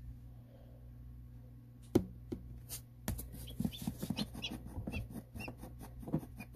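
A newly hatched chick struggling free of its eggshell on a plastic incubator tray: one sharp knock about two seconds in, then a run of scratchy clicks and taps with faint, short, high peeps, over a steady low hum.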